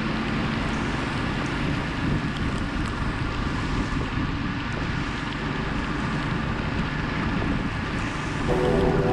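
Steady rush of wind and road noise from a moving motorbike, with wind on the microphone. Music comes back in near the end.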